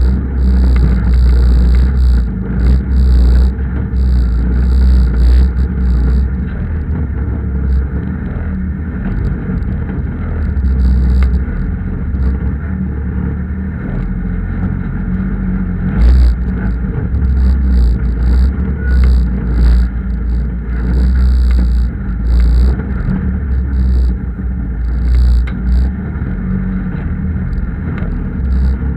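Land Rover 300Tdi four-cylinder turbodiesel running at low speed as the truck crawls over rocks, the engine rumble swelling and easing every second or two, with knocks and rattles from the jolting. Heard through a bonnet-mounted action camera.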